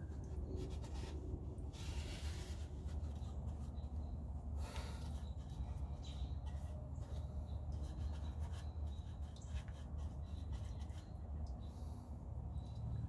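Paintbrush strokes dabbing and scrubbing wet POR-15 rust-preventive paint onto the bare sheet metal of a Jeep's underbody: irregular scratchy strokes, the strongest about 2 and 5 seconds in, over a steady low hum.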